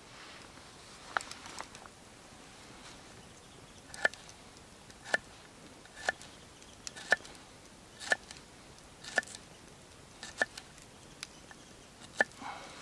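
Knife slicing garlic cloves on a split-log cutting board: short, sharp taps of the blade meeting the wood as each slice goes through, a couple early on and then about one a second.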